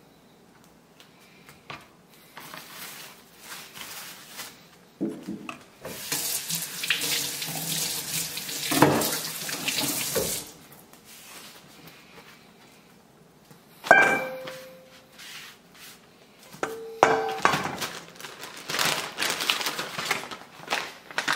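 A kitchen tap running in spells into a sink, and a stainless steel mixing bowl knocked twice, each knock ringing briefly.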